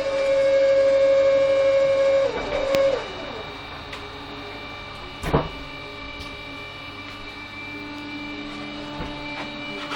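SIKE S-520 truck tyre changer's drive running with a steady whine, then winding down and stopping about two to three seconds in. A single sharp metal clank comes about halfway through, then a lower, quieter steady hum.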